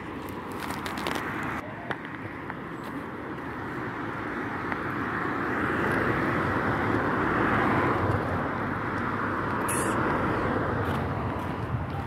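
A road vehicle passing: steady tyre and engine noise that swells over several seconds, is loudest around the middle and fades toward the end.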